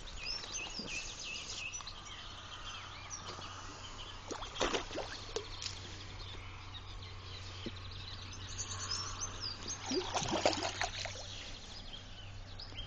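Small birds chirping and singing, with two short bursts of water splashing, one about a third of the way in and a louder one near the end. A low steady hum runs underneath.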